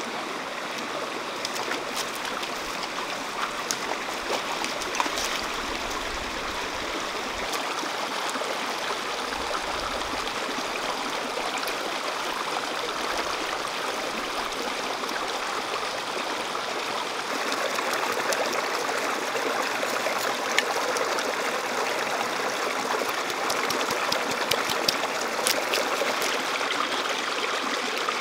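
Shallow rocky stream running steadily, with small splashes and drips as a freshly caught fish is rinsed in the water. The rush grows a little louder past the middle.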